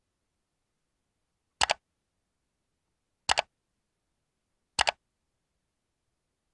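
Computer mouse-click sound effect, three times about a second and a half apart, each a quick double click, from an animated subscribe-button overlay.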